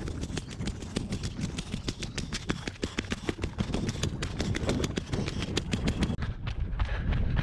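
Running footsteps crunching on a dirt trail and granite slab, quick irregular footfalls, with wind rumbling on the body-worn camera's microphone.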